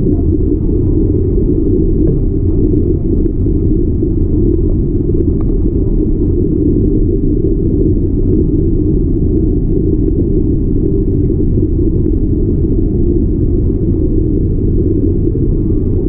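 Steady, loud low rumble with no distinct events.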